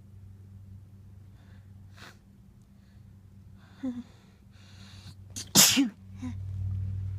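A person working up to a sneeze: a short gasp about four seconds in and a few noisy breaths, then one loud sneeze about five and a half seconds in. A steady low hum comes in just after it.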